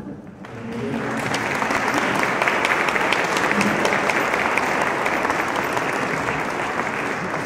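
Audience applauding, the clapping swelling in over about the first second and then holding steady.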